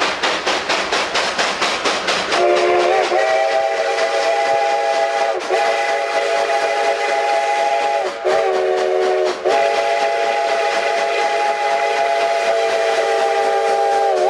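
A multi-note train whistle sounding a chord in four long blasts with short breaks, starting about two seconds in. Before it, and again as it ends, there is fast, even chuffing.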